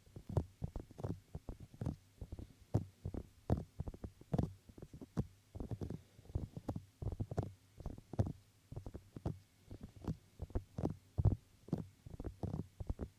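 Bare fingertips patting and touching right at the microphone: many soft, dull taps in an irregular run, several a second.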